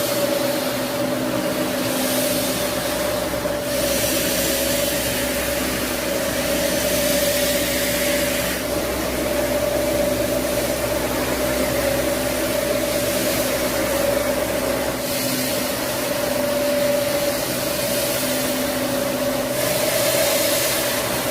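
Carpet washing machine running with a steady whine, over a hissing water spray that swells and fades every few seconds.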